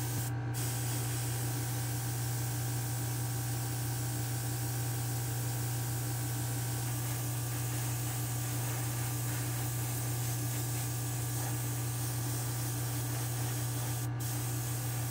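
Airbrush spraying Createx opaque red paint onto small diecast model parts: a steady hiss of air and paint that breaks off for a moment twice, about half a second in and near the end. A steady low hum runs underneath.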